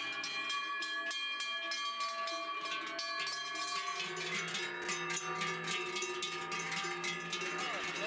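Many cowbells clanging and ringing together, overlapping at different pitches, as a herd of cows moves.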